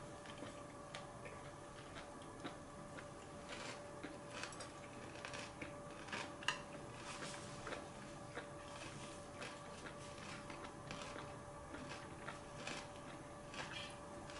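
Quiet eating at a table: scattered light clicks of metal chopsticks and a spoon against ceramic dishes and the table. A louder clack comes about six and a half seconds in, over a faint steady hum.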